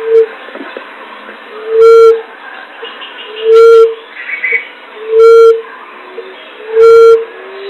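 Common emerald dove (punai tanah) lure call: a loud, low hoot repeated about every second and a half, five times, with fainter chirping of other birds behind it.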